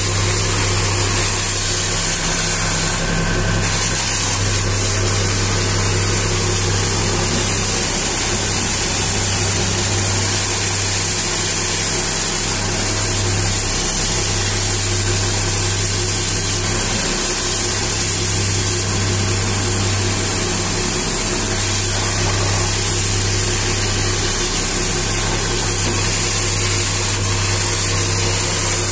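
High-pressure washer running steadily, its pump and motor humming with brief dips every few seconds, under the steady hiss of the water jet spraying onto a dump truck's tyres and chassis.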